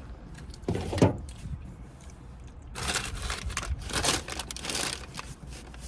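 Takeout food packaging crinkling and rustling as it is handled, loudest from about three seconds in for two seconds, after a single bump about a second in.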